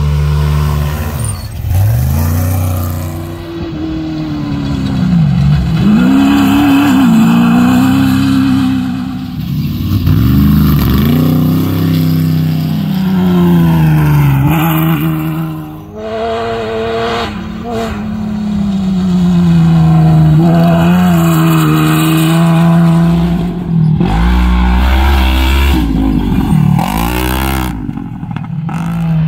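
Off-road racing buggies' engines revving hard as they pass one after another on a dirt track. The pitch climbs and drops repeatedly with throttle and gear changes, over a steady low engine drone.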